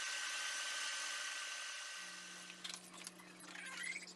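Small electric forge blower running with a steady whine and rush of air, winding down and stopping about two and a half seconds in. Light metal clinks and scrapes of tongs and hot blade follow.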